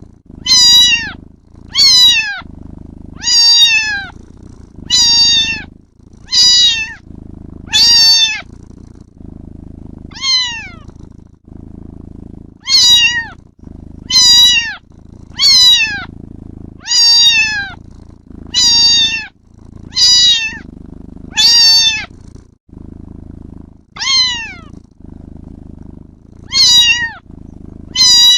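Kitten meowing over and over, short high calls that fall in pitch, about one a second with a few brief pauses, over a continuous low purr.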